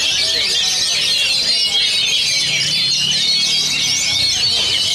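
Caged oriental magpie-robins (kacer) singing at once, a dense, unbroken tangle of overlapping fast, high whistles and chirps.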